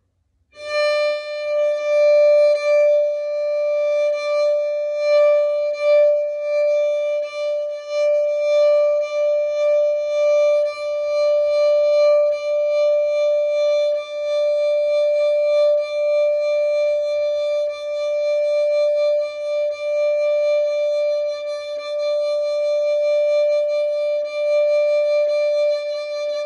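Violin holding one sustained note with a light bow. The bow speeds up and slows down in turns, so the note swells and fades every second or two, aiming for no bump or scratch in the bow.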